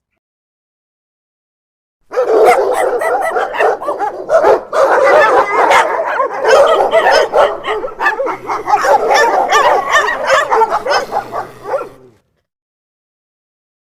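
Dog barking rapidly and repeatedly. The barking starts about two seconds in and runs in a dense, unbroken string for about ten seconds, then cuts off suddenly.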